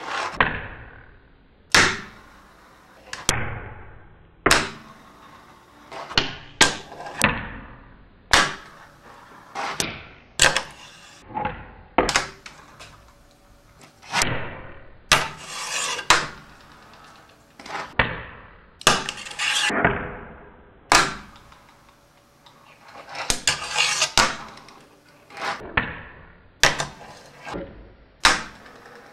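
Fingerboard tricks on a tabletop and a small wooden obstacle: a string of sharp wooden clacks as the miniature board pops and lands, roughly one every one to two seconds, with a few short stretches of scraping and rolling in between.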